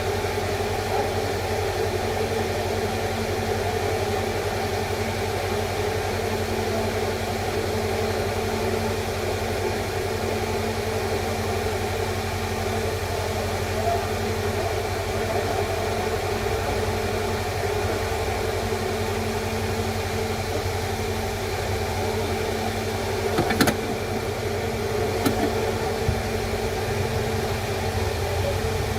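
Steady droning hum with a noisy background, broken by a sharp click a little past three-quarters of the way through and a fainter click shortly after.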